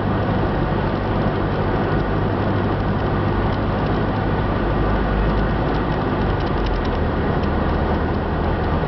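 Cessna 172's piston engine and propeller droning steadily, heard from inside the cockpit, with an even rush of airflow noise over it.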